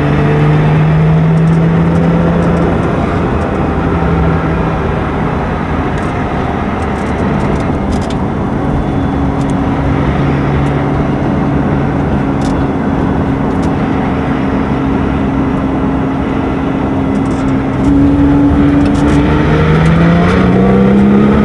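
Porsche 911 GT2 RS's twin-turbo flat-six running under load while driving, its pitch mostly steady; it gets louder about 18 seconds in and then rises in pitch as the car accelerates near the end.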